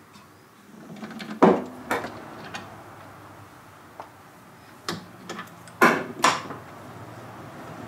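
Sharp knocks and clunks of a steel bracket and shaft being handled and shifted on a wooden workbench. One strong knock comes about a second and a half in, and the two loudest come close together about six seconds in.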